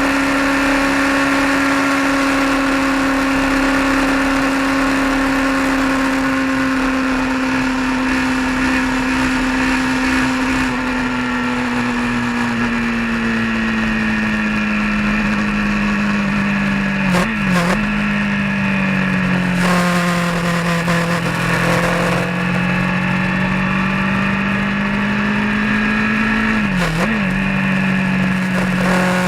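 A road vehicle's engine running steadily while driving, a constant drone that drops slowly in pitch around the middle, then dips briefly twice in the latter half before settling.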